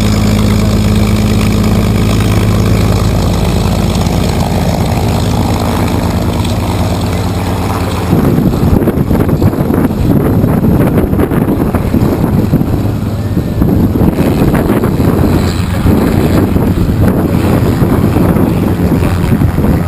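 P-51 Mustang's Packard Merlin V12 engine idling steadily. About eight seconds in, propeller wash hits the unshielded microphone and heavy wind buffeting takes over, loud and rumbling, over the engine.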